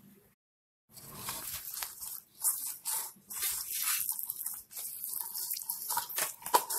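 Hands mixing marinated fish pieces with cornflour and maida in a steel bowl, in irregular rubbing strokes, starting about a second in.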